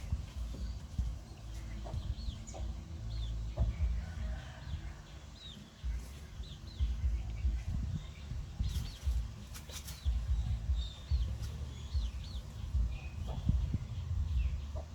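Short, high chirping calls repeated on and off over a low, uneven rumble.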